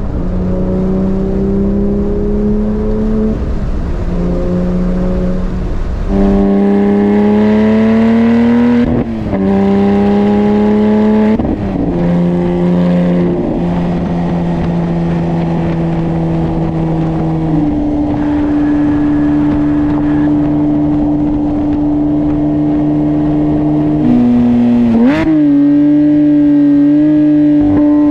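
Porsche 911 GT3's naturally aspirated flat-six breathing through an Akrapovic full titanium exhaust. The engine pulls hard with the revs climbing, drops sharply twice at the upshifts, then settles to a steady cruise, with a quick rev blip near the end.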